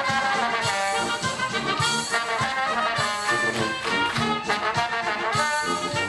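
Live oompah band playing, led by trumpets and trombone over a steady beat.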